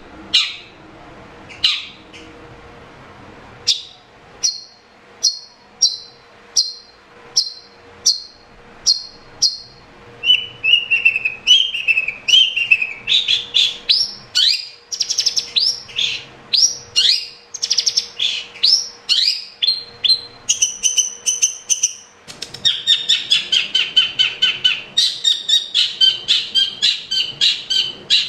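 Long-tailed shrike (cendet) singing in full voice: a string of short, sharp, evenly spaced notes, then from about ten seconds in a fast run of rising chirps, turning near the end into a rapid, varied chatter of notes.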